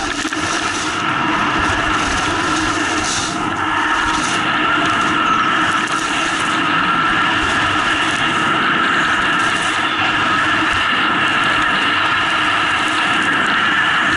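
Skis running fast over packed snow, with a steady rush of wind over the skier's head-mounted camera during a straight downhill run.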